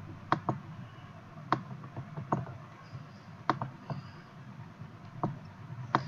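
Irregular sharp single clicks from computer input at a desk, about seven in six seconds with one quick pair near the start, over a low steady background hum.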